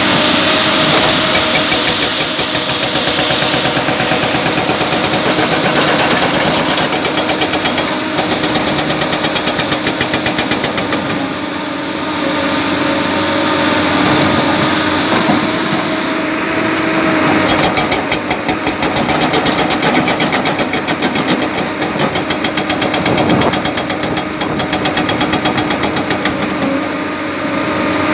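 Everdigm EH24 hydraulic rock breaker hammering in a rapid, even rhythm over the steady drone of the carrier machine's engine.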